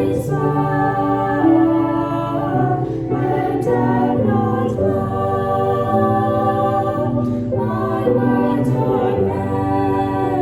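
Choir singing a hymn in sustained chords that change every second or two.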